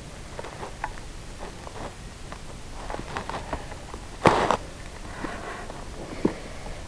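Faint rustling and small clicks, with one short, loud burst of noise a little over four seconds in.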